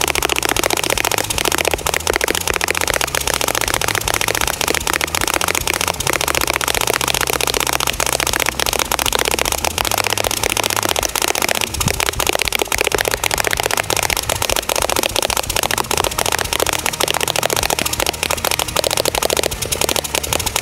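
Classic Army six-barrel airsoft minigun firing one long continuous full-auto stream of BBs, a dense, even rattle of shots over a steady low hum from the barrel-spinning motor.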